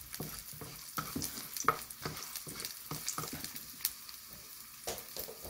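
Garlic cloves and dried red chillies sizzling in oil in a nonstick wok, frying to make garlic oil, with a steady hiss. A wooden spatula scrapes and taps against the pan at uneven intervals, with a sharper knock about a second and a half in.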